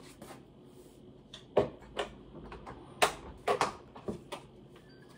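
Cuckoo electric rice cooker being shut: a series of sharp plastic clunks and clicks as the lid is closed and latched, with a faint electronic beep near the end.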